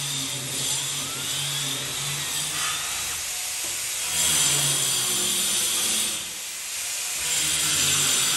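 Electric power tool running steadily under load, with louder spells about four seconds in and near the end.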